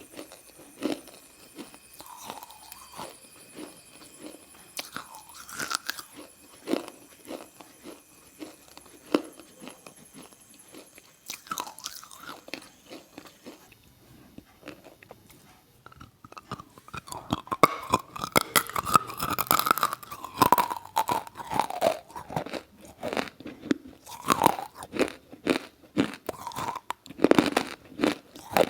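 Close-up crunching and chewing, like biting into and chewing something crumbly and moist. It is made of many sharp crackles, sparse at first, then denser and louder about halfway through.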